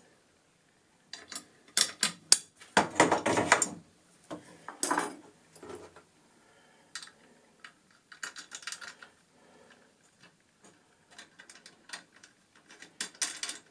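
Small metal parts being handled: clinks and rattles of screws and slot nuts against a metal plate and aluminium extrusion. A burst of clattering comes about two to five seconds in, then scattered light clicks.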